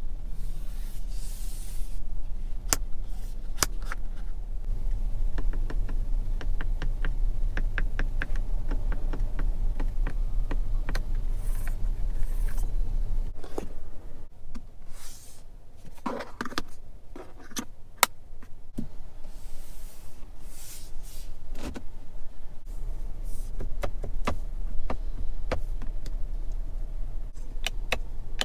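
Hands handling a car's interior trim and controls: scattered clicks and taps with brief rubbing. Underneath runs a steady low hum that drops out about 13 seconds in and comes back about 23 seconds in.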